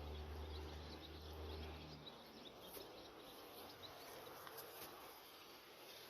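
Faint outdoor ambience: a low steady hum that cuts off about two seconds in, with faint high chirps of insects or birds scattered through.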